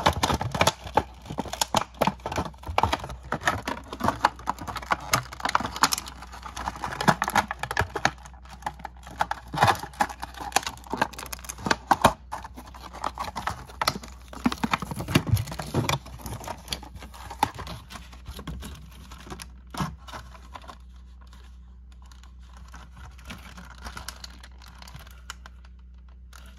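Clear plastic blister tray of an action-figure accessory pack being handled and flexed: rapid, irregular plastic clicks and crinkles, thinning out after about fifteen seconds and dying down near the end.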